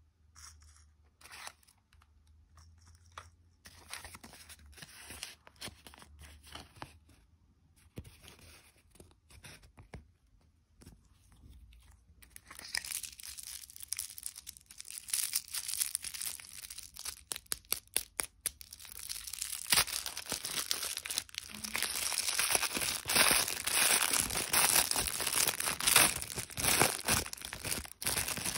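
Plastic candy packaging being handled: faint clicks of plastic capsules for the first half, then a lollipop's plastic wrapper crinkling and tearing, with a run of sharp crackles, growing loud and dense over the last third.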